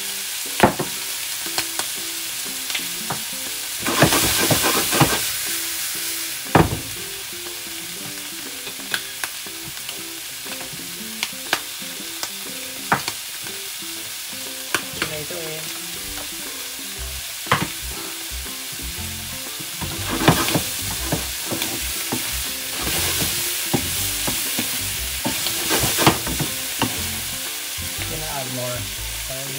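Shrimp and mushrooms sizzling in hot oil in a nonstick frying pan: a steady hiss broken by many sharp clicks and knocks. The sizzling surges louder about four seconds in and again from about twenty seconds in, as the food is stirred.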